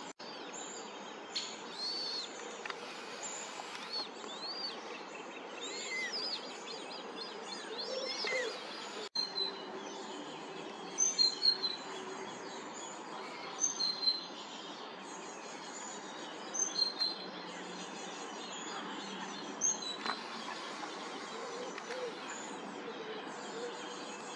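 Birds chirping and singing, a scatter of short high notes over a steady background hiss. The sound cuts out briefly near the start and again about nine seconds in.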